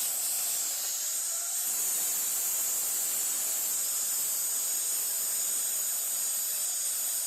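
Blade-type concrete cutting saw running steadily through a concrete roof slab, a continuous high hiss-like grinding.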